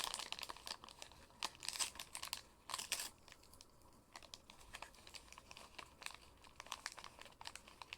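Packaging being handled and torn open by hand: irregular crinkling and crackling, with a few louder rustling bursts in the first three seconds.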